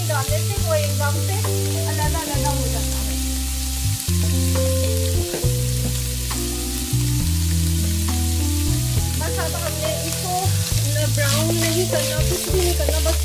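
Shredded cabbage and onion sizzling as they stir-fry in a pan, with a wooden spoon stirring through them and a run of scrapes near the end. Background music with low held notes plays under it.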